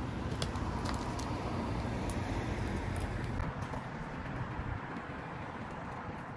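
Road traffic passing on a busy street: a steady wash of car noise with a low rumble that fades about halfway through as a vehicle goes by. A few light knocks sound over it.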